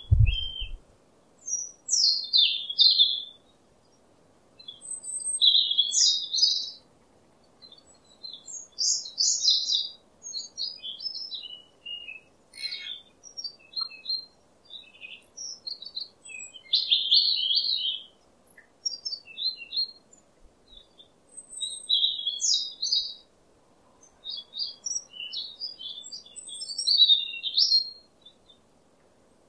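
Songbirds chirping and singing in quick, high phrases of one to two seconds, with short quiet gaps between them.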